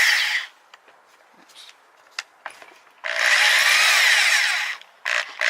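Rotary hammer drill fitted with a Jacobs chuck adapter, run briefly for about a second and a half, starting about three seconds in, its pitch rising and then falling away. Short clicks and clatter of small metal parts come before and after it.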